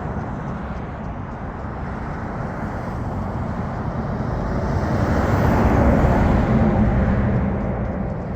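A road vehicle passing, a steady rushing noise that grows louder to a peak about six seconds in and then fades.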